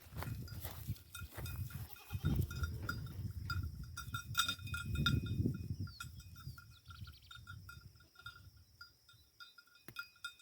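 Goats moving about in their pen, with irregular low noises and scattered knocks, and a faint high chirp repeating steadily.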